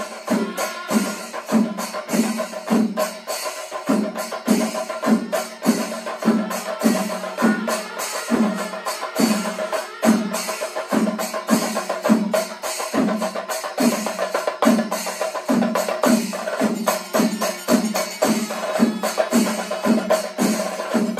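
Chenda melam: a large ensemble of Kerala chenda drums played with sticks, deep strokes falling about twice a second under dense, rapid stick rolls, with a steady held tone above the drums.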